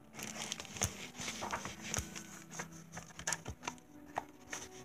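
Hardcover picture book being handled and opened: a series of soft taps and rustles from the cover and pages, over a faint steady room hum.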